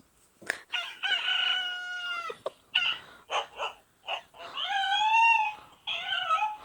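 Two long, drawn-out animal calls with a clear pitched tone: the first held level for about a second and a half, the second rising and falling, with short calls between them.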